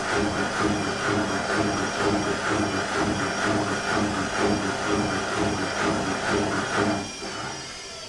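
Whirlpool front-loading washing machine running, its drum turning with a rhythmic churning of about three beats a second. The sound drops off sharply about seven seconds in and fades as the drum slows, on a machine with a fault that keeps it from spinning.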